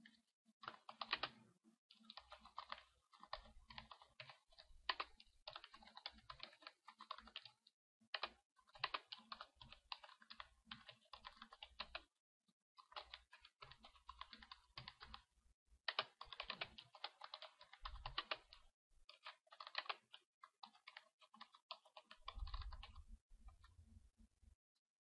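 Faint typing on a computer keyboard, keys clicking in quick runs broken by a few short pauses.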